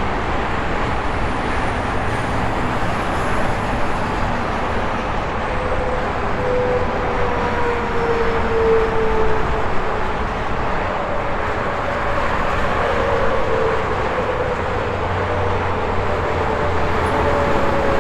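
Steady highway traffic roar from a stream of passing vehicles' tyres and engines. Faint engine and tyre tones sink slowly in pitch as vehicles go by, once around the middle and again near the end.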